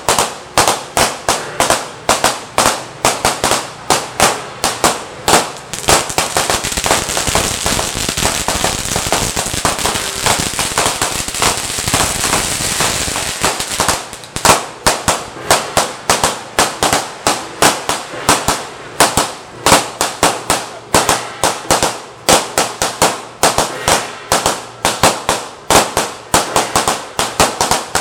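Firecrackers going off in a street: a run of separate loud bangs, about two to three a second, broken from about six seconds in to about fourteen seconds by the dense, rapid crackle of a long firecracker string.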